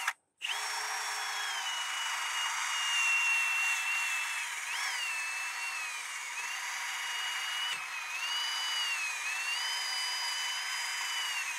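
Milwaukee Fuel cordless drill spinning a wire wheel brush against a rusty wheel hub face, scrubbing off corrosion: a steady motor whine with a scratching hiss. The pitch dips and recovers several times as the brush is pressed on. The sound cuts out for a moment just after the start.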